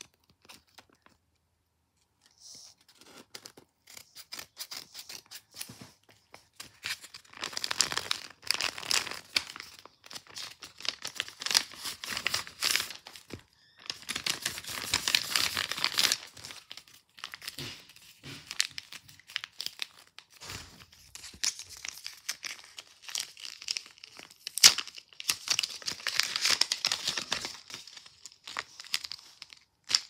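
Paper rustling, crinkling and tearing in irregular bursts as handmade paper blind bags are handled and opened, after a nearly quiet first couple of seconds.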